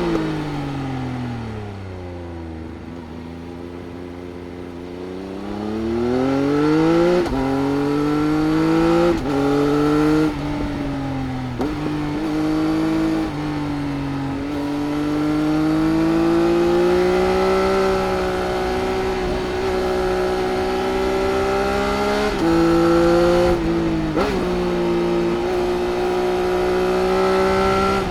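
Triumph Speed Triple RS's 1050 cc inline-three engine through its Arrow exhaust, heard onboard while riding. The revs fall at first, then climb hard with several quick gear changes, hold steady for a while, pick up again with a couple more shifts, and drop near the end.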